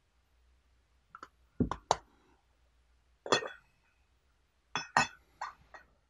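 Glass tea pitcher holding wet tea leaves clinking as it is handled and set down, a string of about eight short, sharp clinks in irregular clusters.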